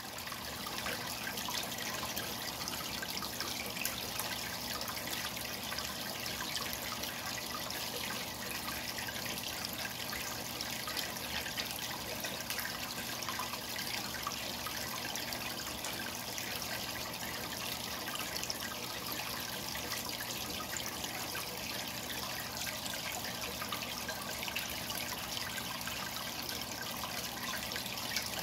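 Aquarium water churning and trickling at the surface, a steady bubbling with fine crackles, swelling in over the first second. A faint low steady hum runs beneath it.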